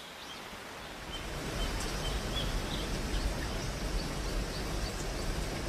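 Outdoor ambience: a steady hiss with a low rumble that fades in over the first second or two, with small birds chirping now and then.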